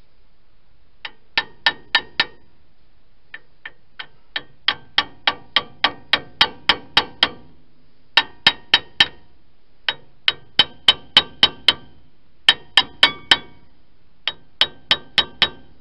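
Repeated sharp metal-on-metal tapping at a Ford truck's dual-piston front brake caliper, in about six bursts of roughly three strikes a second, each strike ringing briefly, as a caliper slide-pin bushing is driven back into its hole.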